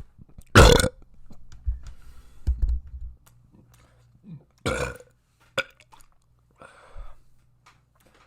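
A person burping loudly twice, about four seconds apart.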